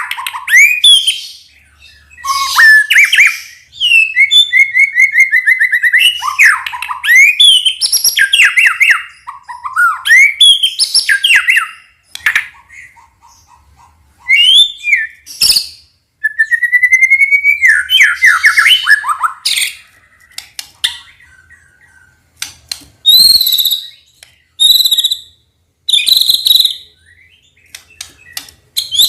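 White-rumped shama (murai batu) singing a long, varied song of loud whistled phrases, rising and falling glides and quick trills in short bouts. A few short harsh, buzzy notes come near the end.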